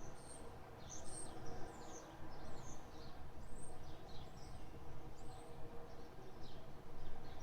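Small birds chirping, a run of short high calls one or two a second, over a steady low hum.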